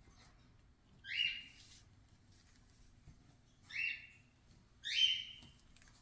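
A bird calling three times, each a short, loud note that rises and then holds.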